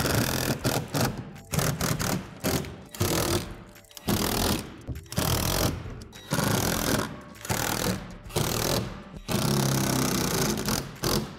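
Cordless drill driving screws into plastic shed wall panels in many short bursts, each under a second, with a longer run about nine seconds in.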